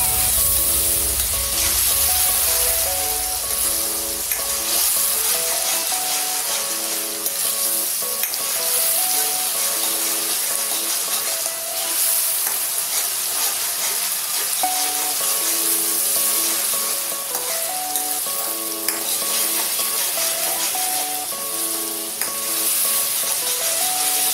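Grated onion sizzling in hot oil in a non-stick kadai, stirred with a spatula; a steady frying hiss. A background tune of short stepping notes plays along with it.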